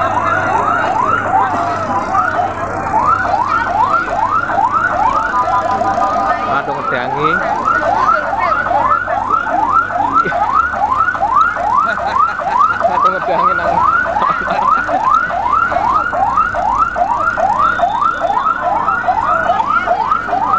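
Fire engine's electronic siren sounding in a fast rising yelp, about two and a half sweeps a second, broken briefly about six seconds in by a steady tone before the yelp resumes.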